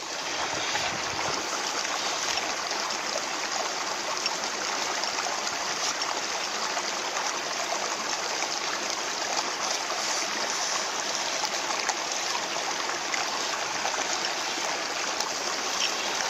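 Flowing water rushing steadily, an even hiss without pauses or changes.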